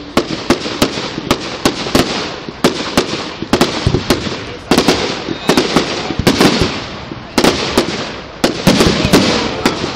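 Fireworks display: a rapid string of sharp bangs, two or three a second, over continuous crackling from bursting shells.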